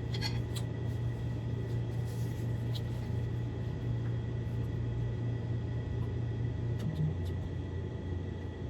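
Steady low hum with a faint high whine running under it, and a few small clicks about half a second in.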